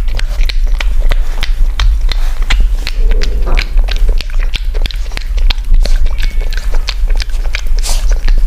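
A puppy licking and chewing at a porcelain plate close to the microphone: rapid, irregular wet clicks and smacks of tongue and teeth on the plate, over a steady low hum.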